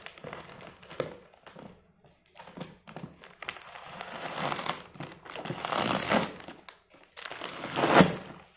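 Packing material crinkling and rustling in irregular bursts as it is pulled out of a cardboard box, with the loudest crackle near the end.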